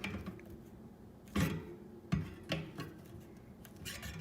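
Needle-nose pliers clicking and scraping against the thin metal louvers of a furnace return-air grille as each louver is bent slightly more open, to cure a reed-effect hum from air whistling through the slats. A few sharp metallic clicks sound over a steady low hum.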